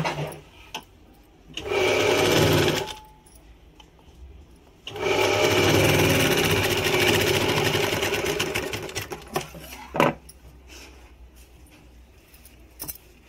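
Domestic sewing machine stitching a seam in two runs: a short one about two seconds in and a longer one of about four and a half seconds, each a fast, even clatter of stitches. A single sharp click comes near the end.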